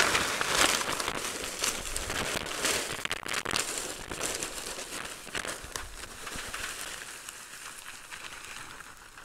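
Mesquite lump charcoal being poured out of a large paper bag onto a paper sheet: a dense clatter of chunks tumbling and knocking together, with the bag crinkling. It is loudest at first and tapers off as the bag empties.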